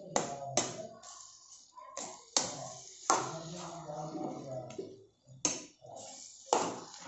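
Steel spoon stirring and scraping a thick vegetable masala in a nonstick pan, with about six sharp clinks of the spoon against the pan at irregular intervals.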